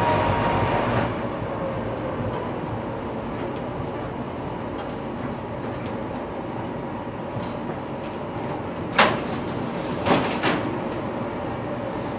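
Tram interior: the steady rumble of the tram running along the rails, a little louder for the first second. A sharp clunk comes about nine seconds in, and two smaller clunks around ten seconds.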